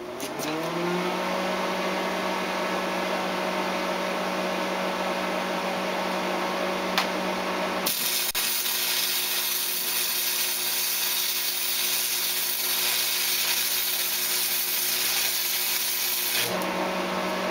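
Lincoln AC/DC 225/125 stick welder starting up, its hum rising in pitch for the first second and then holding steady. About eight seconds in, an arc is struck with a 6011 rod on DC negative and crackles evenly for about eight and a half seconds, then cuts off, leaving the machine's hum.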